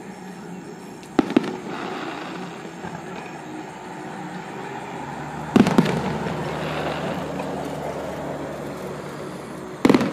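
Aerial fireworks shells bursting in three sets of sharp bangs, about four seconds apart: a doubled report about a second in, another in the middle, and a single one near the end. A steady low background noise runs between the bangs.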